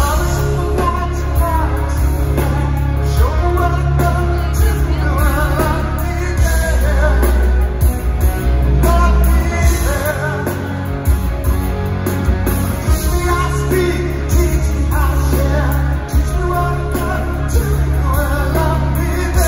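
Live rock band playing: a lead singer's vocals over electric guitar, bass and drums, with heavy, booming bass.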